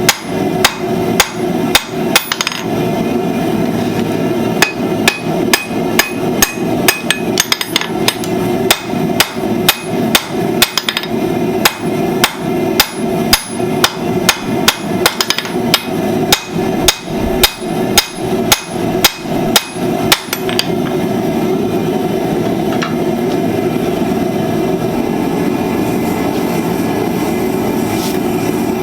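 Blacksmith's hammer striking steel on an anvil while forging tongs, about two ringing blows a second over a steady rushing noise. The hammering stops about twenty seconds in, leaving only the steady noise.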